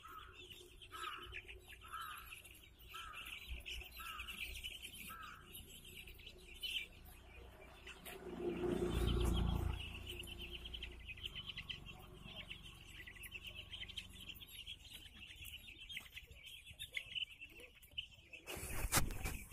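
A large flock of crowded chicks peeping continuously in a dense, high chorus. In the first few seconds six short, lower calls sound about a second apart, a low rumble rises and fades around the middle as the loudest sound, and a short knock comes near the end.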